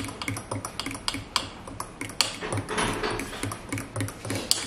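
A spoon stirring thick pumpkin punch inside a glass blender jar, clinking and scraping against the glass in quick, irregular clicks.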